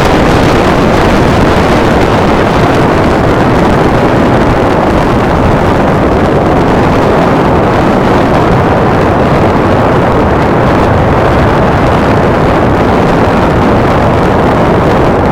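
Loud, steady rush of wind buffeting the microphone and road noise from a moving car, with no distinct horn or engine note standing out.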